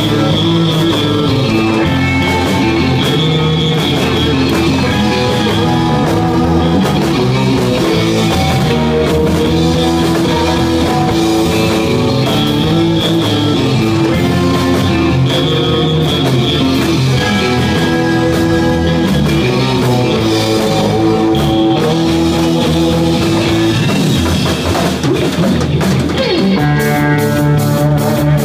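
Live instrumental surf-rock band: electric guitar playing the melody over a drum kit. Near the end the music changes to a steady, evenly repeating chopped rhythm.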